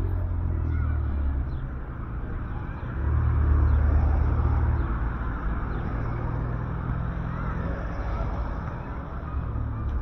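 Street ambience dominated by a motor vehicle's engine running close by, a low steady hum that grows louder for a couple of seconds about three seconds in.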